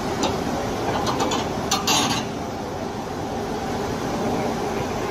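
Heavy diesel earthmoving machinery running steadily, with short metallic clanks and rattles. The strongest clank comes about two seconds in.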